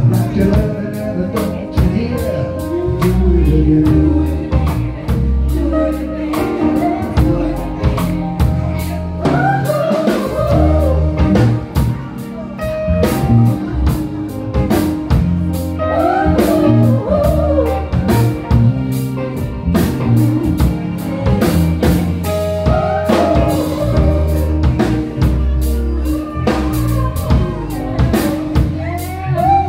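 Live band playing, with electric guitar, electric bass and a drum kit keeping a steady beat, and a woman singing lead in phrases over it.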